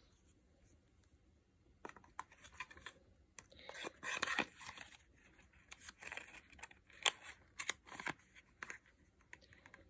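A plastic lip gloss tube slid into its paperboard carton and the carton's flaps closed. This makes a run of scraping rustles and sharp clicks, loudest about four seconds in.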